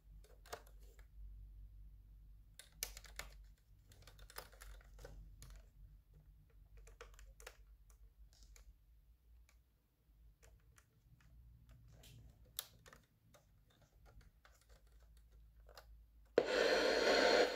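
Light plastic clicks and taps from fingers handling a Panasonic RC-70 clock radio's plastic case and working its buttons and switches. About sixteen seconds in, the radio's speaker cuts in with a sudden loud hiss of static.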